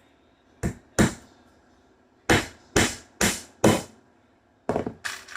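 Hammer blows on wood, as in nailing the feeder's wooden pieces together: two strikes, a short pause, four steady strikes about half a second apart, then two or three more near the end.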